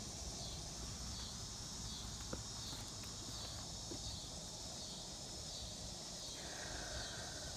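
A high-pitched outdoor insect chorus, of the cricket kind, trilling steadily and swelling and fading in regular pulses, with a faint click about two seconds in.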